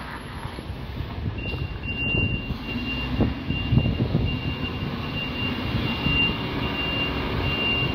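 MAN TGS 26.320 garbage truck's diesel engine running as the truck reverses, its reversing alarm beeping in a high-pitched steady series that starts about a second and a half in. The engine grows louder as the truck comes closer.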